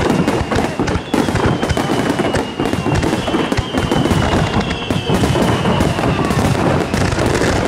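Dense, continuous barrage of fireworks: overlapping bangs and crackling with no pause. A thin high tone runs above it, sliding slowly down and starting again higher a few times.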